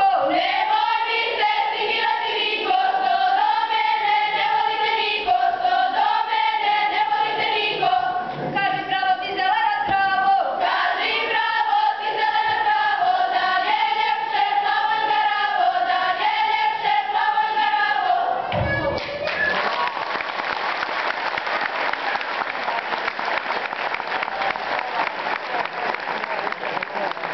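Girls' folk choir singing a Serbian folk song unaccompanied, the song ending about 18 seconds in, then audience applause.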